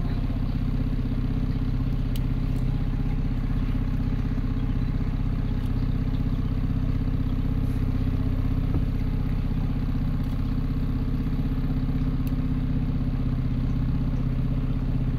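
Small tour boat's engine running steadily at low cruising speed, a constant low hum with an even beat.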